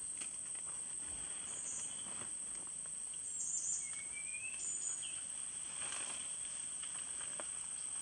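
A steady high-pitched insect drone, with a few short bird chirps around the middle, one of them a brief rising whistle.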